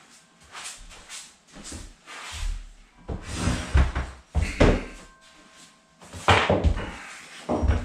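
Knocks and thumps on laminate flooring planks, in two loud clusters about three to five seconds in and again from about six to seven and a half seconds in, with lighter clicks between.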